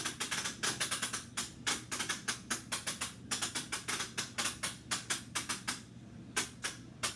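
Rapid, irregular clicking and tapping, several sharp strikes a second, thinning out a little near the end: a really annoying noise made by someone off-camera.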